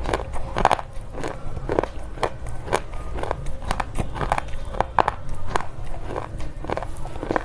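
Slate pencils being bitten and chewed: a string of crisp crunches and crackles, about two a second.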